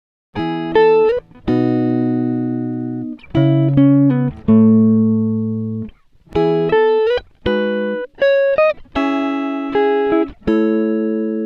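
Background music: a clean plucked guitar melody of single notes and chords, each struck and left to ring out and fade. It starts after a short silence.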